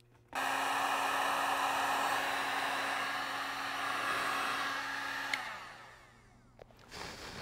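Electric heat gun switched on, its fan and heater blowing steadily for about five seconds, then switched off with a click and winding down, while heating the heat-shrink wrap on a battery pack.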